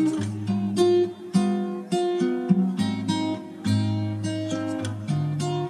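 Background music: a strummed acoustic guitar playing a run of chords, about two strokes a second.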